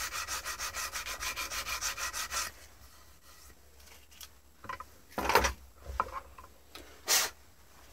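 A metal part in a bench vise being rubbed back and forth by hand with an abrasive to clean it up and polish it, at about five strokes a second. The rubbing stops a little over two seconds in, and a few sharp knocks follow as the part is handled in the vise, the loudest about five seconds in and another near the end.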